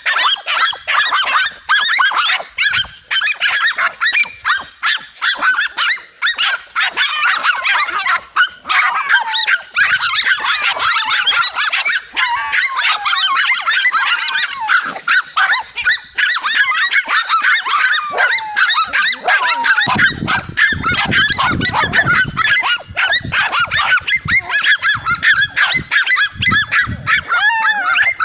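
Several dogs barking and yapping at a monitor lizard, many short high-pitched barks and yelps overlapping without a break. About twenty seconds in, a low rumbling noise joins the barking.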